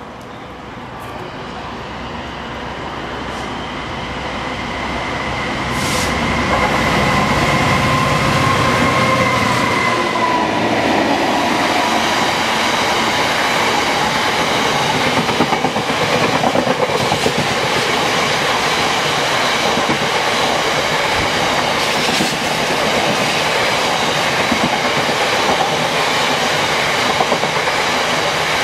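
A Class 66 diesel freight locomotive, with its two-stroke V12, approaches and passes with a steady engine whine that grows louder, then drops in pitch and fades about ten seconds in. A long rake of empty oil tank wagons, with a dead Class 60 locomotive in tow, follows, rumbling and clattering rhythmically over rail joints and pointwork, with a few sharp knocks.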